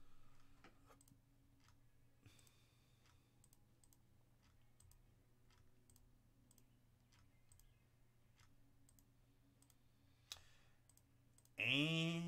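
Faint computer mouse clicks, about nine in all and a second or so apart, each re-shuffling a list on an online randomizer.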